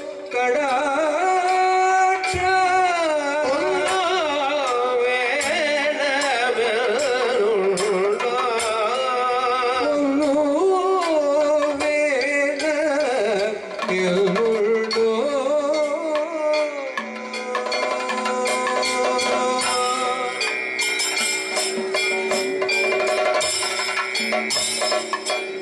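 Kathakali music: a vocalist sings an ornamented Carnatic-style melody over a steady drone. About two-thirds of the way through, the singing gives way to chenda drumming and cymbal strikes over held tones.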